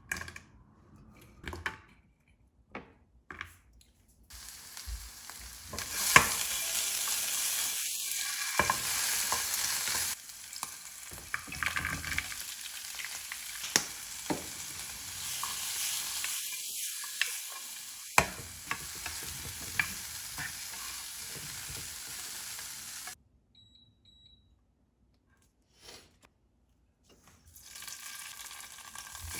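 Food frying in a pan: a steady sizzle with scattered sharp taps and scrapes of a utensil against the pan. A few clicks come first, the sizzle starts about four seconds in, breaks off suddenly for a few seconds of near silence, and resumes near the end.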